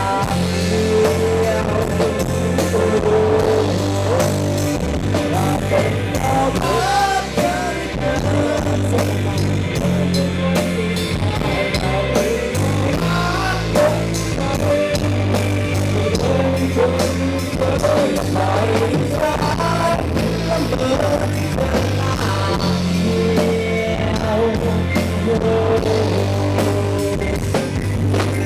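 Live band playing a pop-rock song: drum kit and bass keep a steady beat under a bending lead melody line, with no words sung.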